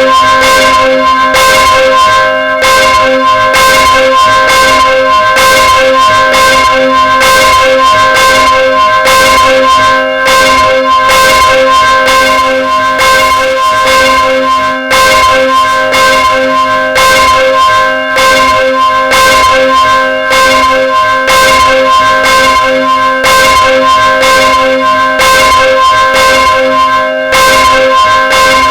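A single church bell swinging and ringing full circle of its swing, the clapper striking in a steady rhythm a little faster than once a second, each stroke loud and the tone ringing on continuously between strokes.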